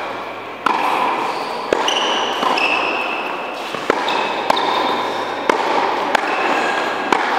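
Tennis balls being struck with a racket and bouncing on an indoor court: a sharp pop about once a second, with brief high squeaks between them.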